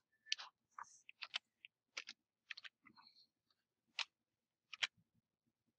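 Computer keyboard keystrokes and mouse clicks: about a dozen short, faint clicks at an irregular pace.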